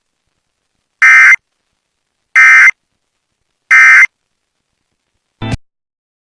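Emergency Alert System end-of-message signal: three identical short, loud bursts of digital data tones, about 1.4 s apart, marking the end of the alert. A short click follows about five seconds in.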